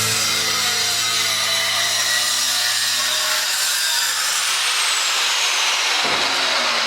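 Angle grinder running and cutting with a harsh, steady grinding noise. Over the last two seconds its whine falls steadily in pitch as the disc winds down.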